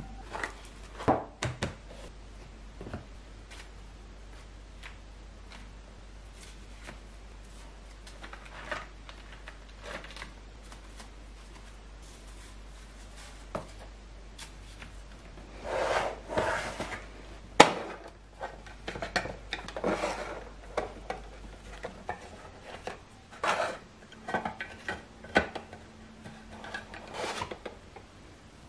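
A fork clinks and scrapes on a plate a few times near the start. Later, papers rustle and shuffle in bursts as they are handled in a plastic basket, with one sharp knock about two-thirds of the way through.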